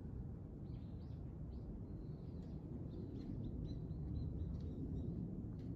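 Small birds chirping in quick, short, high calls, thickest in the first few seconds and again near the end, over a steady low rumble.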